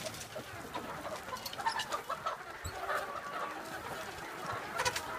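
A flock of hens clucking, many short overlapping calls throughout, with a few sharp clicks near the end.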